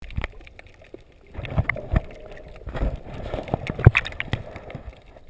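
Muffled sound of a camera held underwater: irregular knocks and clicks, the loudest about four seconds in, with short bursts of rushing water noise.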